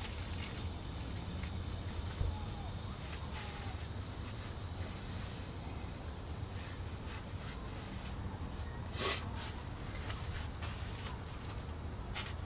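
Insects trilling in one steady, continuous high note, over a low background rumble, with a single short click about nine seconds in.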